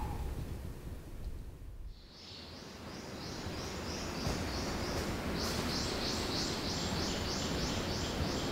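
Forest ambience in which a high-pitched animal call repeats about twice a second. The call starts about two seconds in and grows louder a few seconds later.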